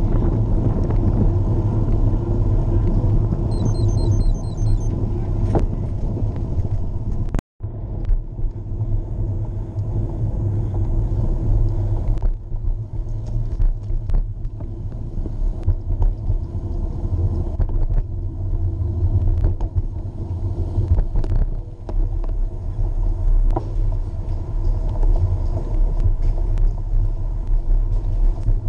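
Steady low rumble of a bicycle rolling on pavement, with tyre and wind noise picked up by a camera mounted on the bike or rider. The sound cuts out for an instant about seven seconds in.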